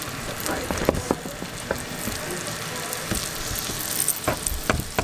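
Onion wedges and red bell pepper sizzling in hot oil in a skillet, a steady frying hiss with a few sharp clicks and pops.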